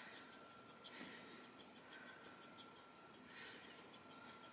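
A spice jar of dried basil shaken rapidly by hand: faint, even rattling taps, about five a second.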